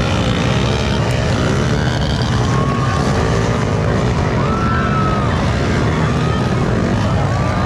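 Motocross dirt bikes running on the track, their engine pitch rising and falling in several sweeps as they rev through the course, over a steady low rumble.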